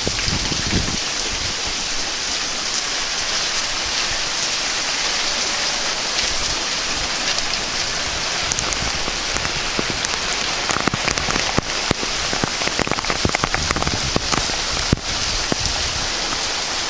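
Heavy rain falling steadily, with a run of sharp close drop impacts clicking through the second half.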